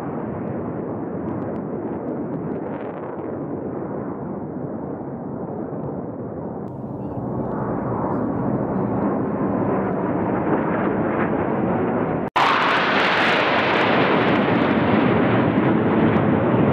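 Jet aircraft flying past in formation, a steady rushing noise that swells from about halfway through. Near the end it cuts out for an instant and comes back louder and brighter.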